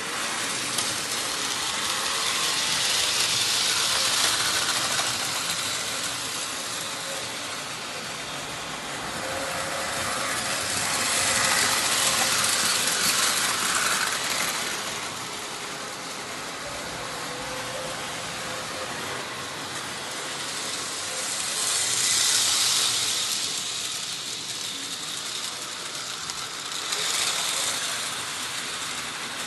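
Märklin model trains running on stamped-metal track, a steady rattling clatter of wheels and motor. It swells loudly and fades away four times as trains pass close by.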